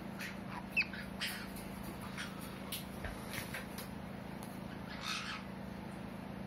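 Pet parrot giving a series of short squawks and chirps, with a longer, harsher squawk about five seconds in. A steady low hum runs beneath.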